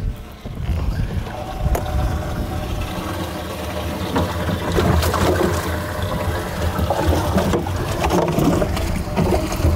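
Fishing boat's motor running on the water, a steady low rumble with a few faint steady tones over it.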